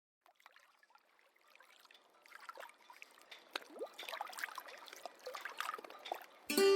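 Water trickling, fading in from near silence as a scatter of small drips and bubbling plinks. Music starts near the end.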